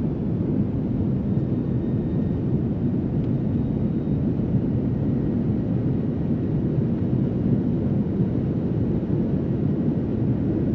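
Steady engine and airflow noise of a jet airliner in flight, heard inside the passenger cabin: an even, unbroken noise, heaviest in the low range.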